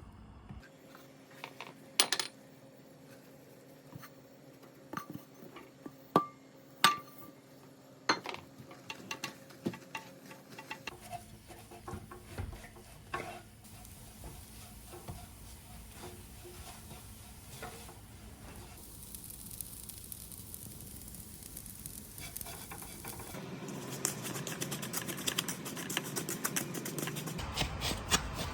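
A utensil clinking and scraping against a pan or bowl, then a sizzling, crackling hiss that grows louder as shredded kataifi pastry is stirred while frying in melted butter.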